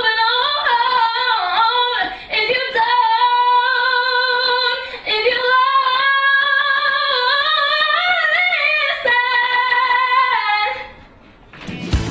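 A woman singing solo into a handheld microphone, holding long, high notes that bend in pitch, in a small room; the singing stops a little before the end.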